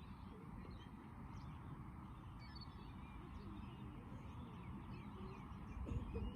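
Birds foraging, with many short scattered chirps and some lower calls over a steady low background rumble, and a low thump near the end.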